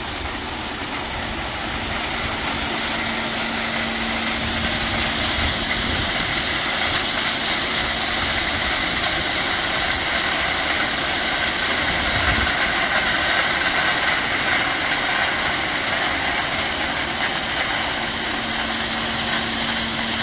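A dump truck's diesel engine runs steadily as a load of crushed stone pours out of the open tailgate onto the ground in a continuous stream.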